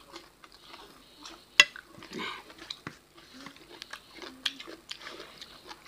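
Eating sounds of two people eating rice and meat curry with their hands: fingers working food on a steel plate and a ceramic plate, and chewing, with scattered sharp clicks on the plates, one loud click about a second and a half in.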